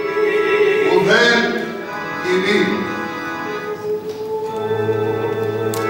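Choral music: a woman soloist sings over long sustained chords, her voice rising and falling over the held notes about a second in.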